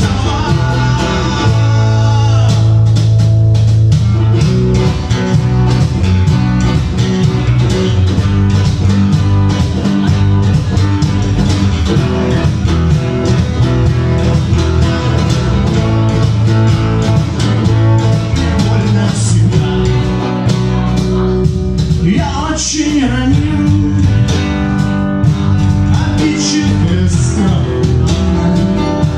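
Live rock band playing: electric guitar, bass guitar and percussion keeping a steady beat, with some singing.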